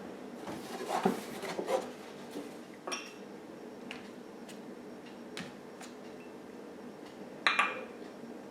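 A few small clinks and taps against a small ceramic cup of coffee as it is dipped into and handled, in short clusters with the loudest pair near the end, over a steady low room hum.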